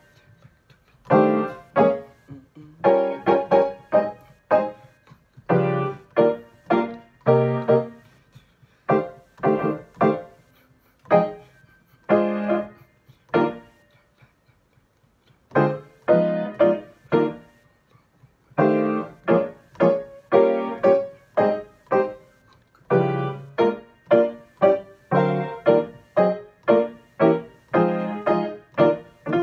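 Grand piano played at a brisk pace: repeated chords under a melody line, breaking off for about four seconds around halfway before carrying on.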